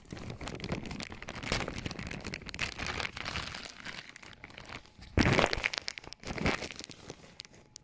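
Clear zip-lock plastic bag crinkling and rustling as an object is worked out of it, with a louder burst of crinkling about five seconds in.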